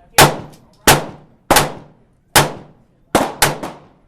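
Gunfire: a string of about seven sharp shots, each with a short echoing tail, coming roughly every two-thirds of a second, with three in quick succession near the end.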